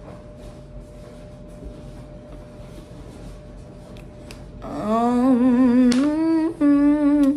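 A woman hums a tune with closed lips, starting about four and a half seconds in: one wavering, vibrato-laden melody with a brief break, ending on a held note. Before it, only quiet room tone with a faint steady hum.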